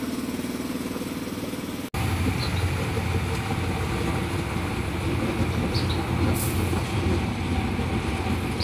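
Diesel engine of the SRT GE shunting locomotive No. 4015 running as it creeps along the platform track: a steady low rumble. A brief high hiss about six seconds in. Before a cut about two seconds in there is a different, steadier hum.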